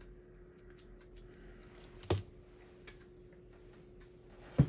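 Small clicks and taps from handling a tiny HO slot car chassis and its parts, with a sharp click about two seconds in and another near the end, over a faint steady hum.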